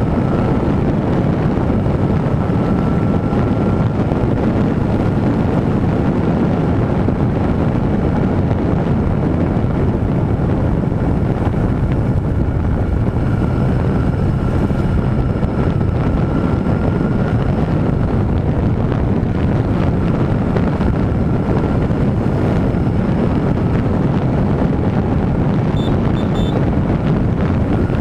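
Wind rushing steadily over the microphone of a camera on a Honda CB1000R motorcycle at cruising speed, with the bike's inline-four engine running underneath.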